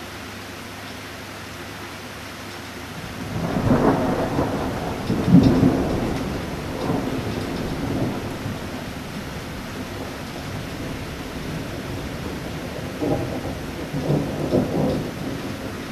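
A thunderclap about three seconds in, rolling in two loud crashes and then rumbling away over several seconds, with a second shorter rumble near the end. Steady rain falls underneath throughout.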